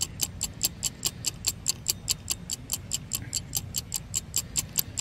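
Clock-ticking sound effect for an on-screen countdown timer: quick, even ticks at about five a second.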